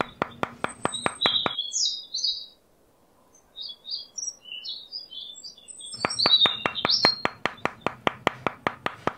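Small hammer tapping a thin wooden stick down into a sand base, quick light knocks about six a second in two runs, stopping about a second and a half in and starting again about six seconds in. Birds chirp throughout.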